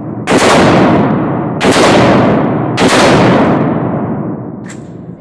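Three short bursts of automatic fire from an MP5 submachine gun, about a second and a quarter apart, each ringing on in the enclosed range.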